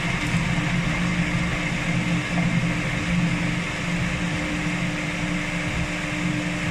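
Electric food processor running steadily, grinding onion and garlic into a paste: a continuous motor hum.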